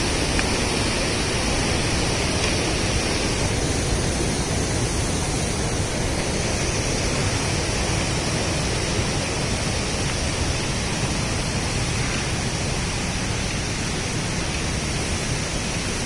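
Steady rushing of the Parvati River, a fast white-water mountain river.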